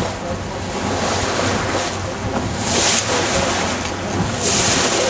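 Water washing against a drifting sailboat's hull in a swell, with wind blowing across the microphone; the hiss swells up twice, about halfway through and near the end.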